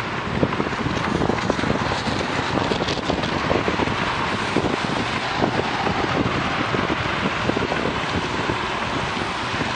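Wind buffeting the microphone of a bike-mounted Garmin VIRB action camera as the bicycle rides at about 25 km/h, a steady rush with irregular gusty thumps, over the hiss of tyres on a rain-wet road.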